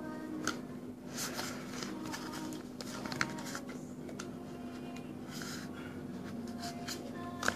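Duct tape being handled, folded and pressed between the fingers, giving intermittent crinkling and rustling in short clusters over a steady low hum.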